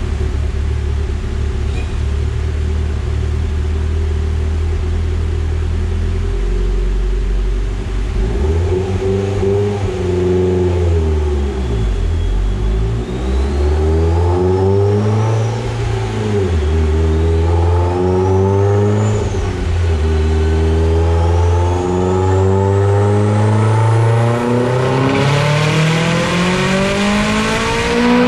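Mitsubishi Lancer Evolution X's turbocharged four-cylinder running under load on a chassis dyno. It holds a steady note for several seconds, then its revs climb and dip a few times, and a long steady climb cuts off sharply near the end. A high whine rises and falls with the revs above the engine note.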